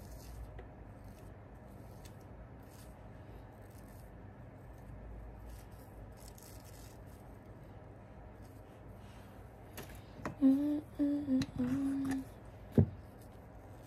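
A woman humming a few short, steady notes for about two seconds near the end, over faint rustling as she works her hair into a ponytail. A single sharp click follows just after the humming.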